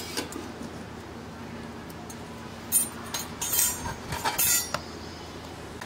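A metal spatula scraping and clinking against an iron tawa and a steel plate: a quick run of short, harsh scrapes and clinks starting almost three seconds in and lasting under two seconds.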